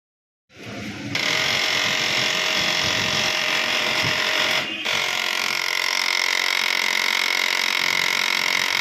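HP LaserJet 1005 laser printer running with a loud, steady mechanical whine: the abnormal running noise that is the printer's fault. The noise breaks off briefly about halfway through.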